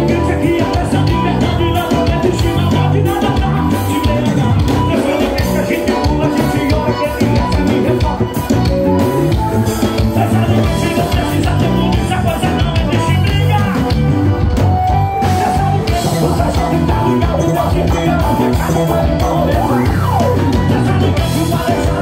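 Live band playing loud amplified music through a PA system: a male singer sings over drums, bass and electric guitar.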